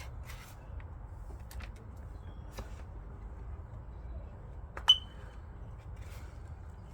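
Faint rustling and light clicks of hands working through wet potting soil over a low steady rumble, with one sharp clink about five seconds in that rings briefly.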